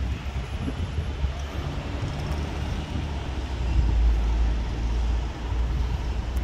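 Low rumbling city ambience of traffic, louder about four seconds in.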